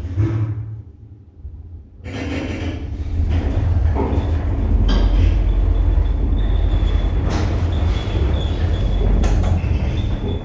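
A 1989 Schmitt + Sohn elevator car riding between floors, heard from inside the car. A steady low rumble begins about two seconds in and holds, with a few clicks and a faint high whine.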